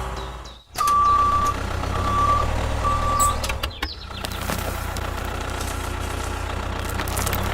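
Reversing alarm beeping three times, about a second apart, over a low, steady engine rumble. The sound drops out for a moment just before the first beep.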